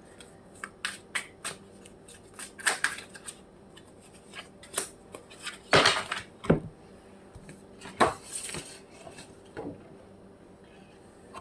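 Tarot cards being shuffled and laid out on a table: irregular taps, flicks and snaps, a few louder ones around the middle.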